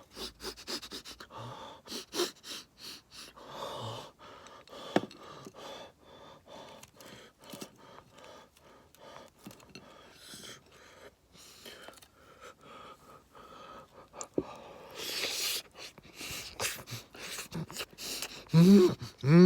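A person eating sushi close to the microphone: irregular chewing and mouth clicks with audible breathing, then near the end a short hummed "mmm" that rises and falls.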